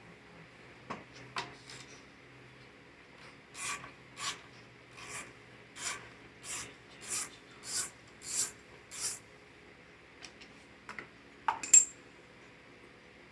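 Hand tool working on metal mower parts: about ten even rasping strokes, a little more than one a second, then a few light clicks and one sharp metallic clink near the end.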